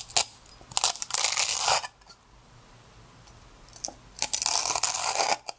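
Crisp fried egg rolls crunching and crackling as a knife cuts down through them on a wooden board, in two long bouts, about a second in and again near the end. The loud, brittle crackle is the sign of thin, well-fried, crispy homemade wrappers.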